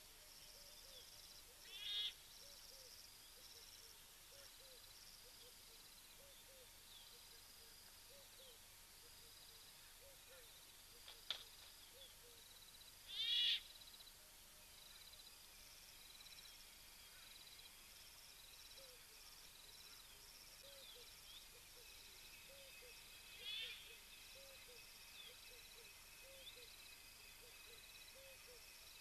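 Faint waterhole ambience: continuous soft chirping of insects and small animal calls, with three louder short high calls about 2, 13 and 23 seconds in, and a single sharp click around 11 seconds.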